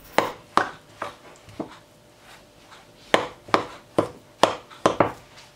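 Metal utensil knocking against a glass mixing bowl while stirring a stiff cornmeal dough: a run of sharp taps, four in the first second and a half, a pause, then five more about half a second apart.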